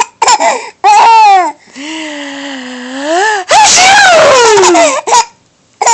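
Baby laughing in a run of high squeals and short breathy catches, several of the squeals sliding down in pitch.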